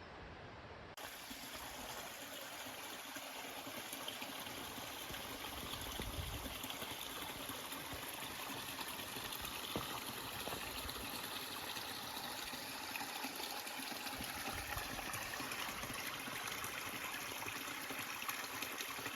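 Running water of a small stream or creek: a steady, even rush that starts abruptly about a second in and grows a little louder over the following seconds.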